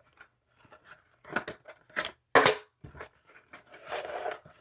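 Flag-set package being opened by hand: a few sharp crinkling and tearing noises of the packaging, then a longer stretch of rustling near the end.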